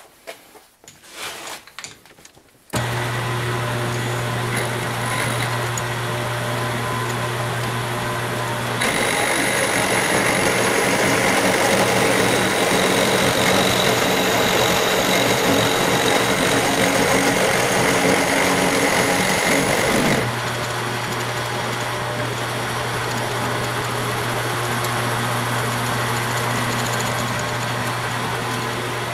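Milling machine spindle starts up a few seconds in and runs with a steady hum; a few seconds later the face mill begins cutting the 6061 aluminum plate, a louder, rougher noise lasting about eleven seconds, after which the spindle runs on without cutting.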